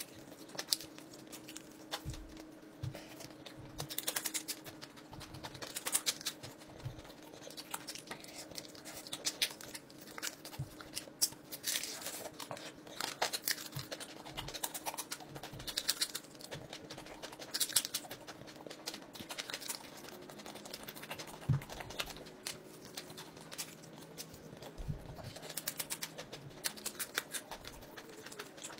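Close-up eating sounds of fried fish being chewed: wet lip-smacking and mouth clicks in short bursts every second or two, over a faint steady hum.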